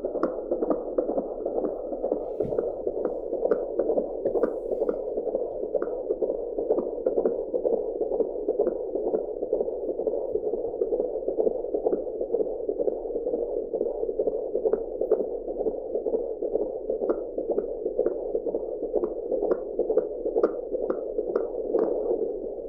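Fetal heartbeat picked up by an AngelSounds handheld Doppler: fast, regular beats over a steady hiss.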